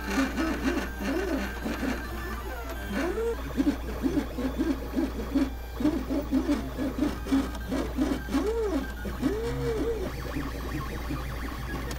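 MakerBot 3D printer at work, its stepper motors whining in short tones that sweep up and down in pitch as the print head speeds up and slows down, over a steady low hum.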